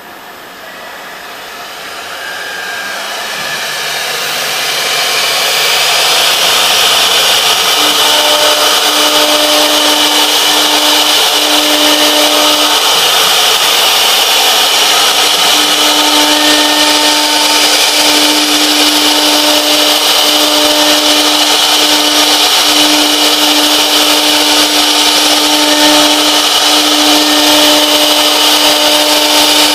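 Three-spindle CNC wood router running, its spindle motor growing louder over the first six seconds and then holding a steady high whine as the bit routs grooves in the board. A lower hum starts and stops repeatedly from about eight seconds in as the machine moves.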